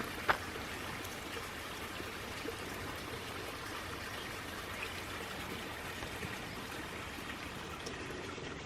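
Small seasonal waterfall of runoff water splashing steadily into a roadside ditch, an even rushing trickle. A single sharp tap sounds just after the start.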